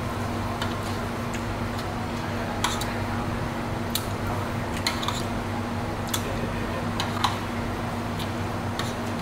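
Eating utensil clicking and scraping against a plate at irregular intervals, a dozen or so sharp clicks, over a steady low hum.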